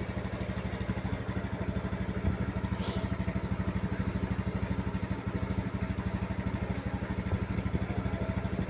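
Honda Scoopy automatic scooter's single-cylinder four-stroke engine idling steadily, with an even, rapid pulse.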